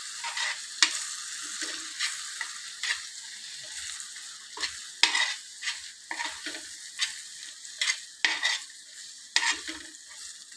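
Onion-tomato masala with spice powders sizzling in oil on a flat tawa while a metal spoon stirs and scrapes it against the pan: a steady high hiss broken by irregular scraping strokes.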